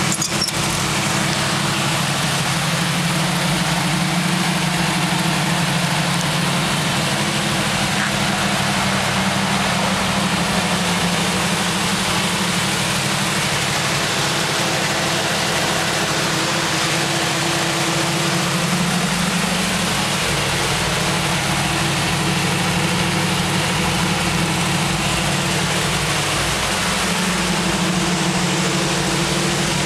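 Chevy 350 small-block V8 in a 1970 Toyota Land Cruiser FJ40 idling steadily.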